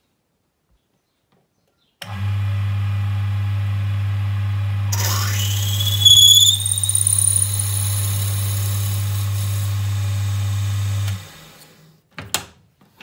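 Wood lathe running with a steady low hum. A few seconds in, a whine rises sharply in pitch and holds high. The machine stops and winds down, and a short click follows.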